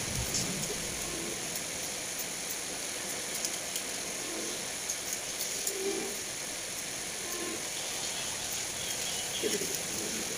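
Steady background hiss with a few faint short ticks scattered through it; no distinct sound from the work itself.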